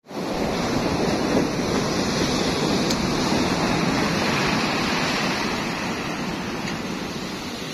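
Steady rush of sea waves and wind, with wind buffeting the microphone.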